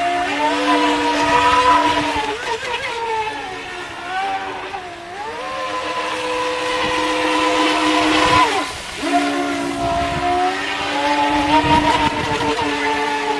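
Feilun FT011 RC speedboat's brushless motor whining at speed, with water hissing off the hull. The pitch sags and climbs back about four seconds in, then falls sharply and drops out for a moment near nine seconds before the whine comes back.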